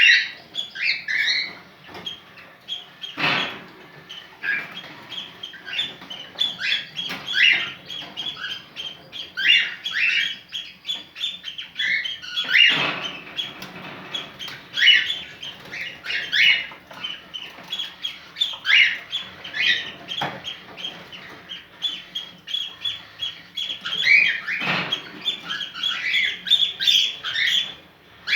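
Cockatiel in breeding condition calling over and over: rapid short chirps and whistles with a few harsher squawks spread through.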